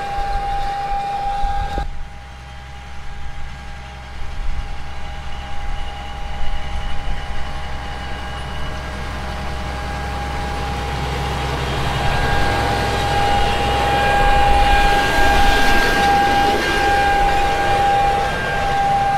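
Fendt 1050 tractor's six-cylinder diesel running under load while pulling a John Deere N530C air seeder, with a steady high whine over a low rumble. The sound changes abruptly about two seconds in, and it grows louder and noisier as the rig passes close near the end.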